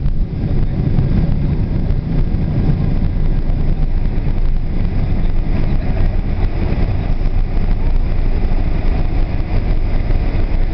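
Steady low rumble inside a Boeing 747's cabin as the airliner rolls along the ground after landing, the engines and airframe running with a hiss on top.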